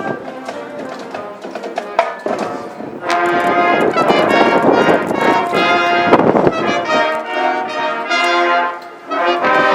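High school marching band playing: a lighter passage with percussion ticks, then the full brass section comes in with loud held chords about three seconds in, drops away briefly near the end and comes back in.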